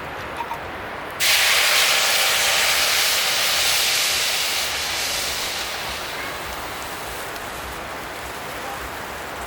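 Sudden loud hiss of steam as liquid meets the hot camp oven, starting about a second in and fading slowly over several seconds.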